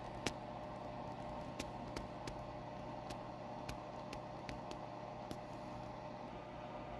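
Steady background hum and hiss with scattered light clicks, the loudest about a quarter second in.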